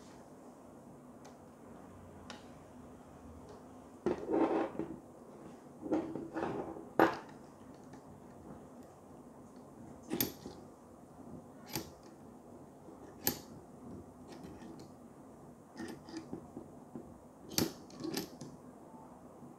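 Hands handling and fitting together a super clamp and an articulated arm: scattered sharp clicks and knocks of metal and plastic parts, with a few seconds of rustling handling noise around four and six seconds in.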